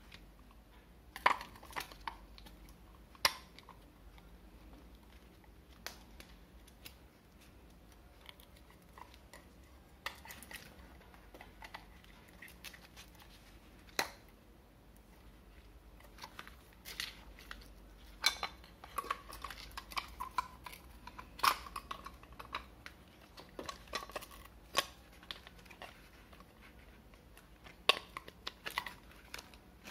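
Handling noise of a blue plastic spool spindle being fitted into a roll of thermal sticker labels: irregular plastic clicks and taps, some sharp, with paper rustling in between.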